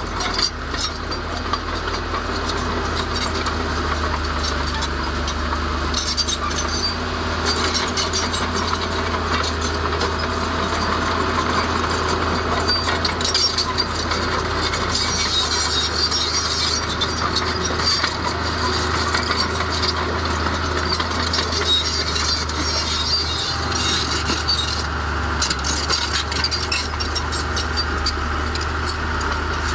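Diesel engine of a Komatsu D31A crawler bulldozer running steadily under load, with constant clanking and rattling from its steel tracks and the stone and soil being moved.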